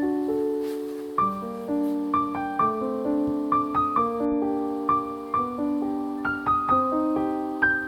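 Gentle solo piano background music: single notes struck one after another, about two or three a second, each left to ring and fade.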